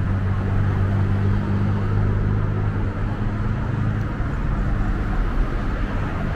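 City street traffic noise with a steady low engine hum that fades after about four seconds.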